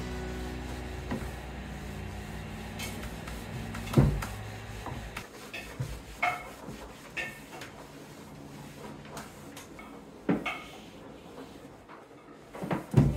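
Wooden changing table being handled and wiped down with a cloth: a few sharp wooden knocks, about four seconds in, about ten seconds in and near the end, with light clicks and rubbing between them.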